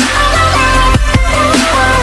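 Electronic dance music with heavy bass and a steady beat.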